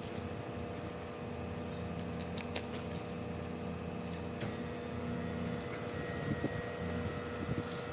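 A steady mechanical hum with a low rumble, overlaid by a few brief clicks and rustles about two and a half seconds in, around four and a half seconds and near the end.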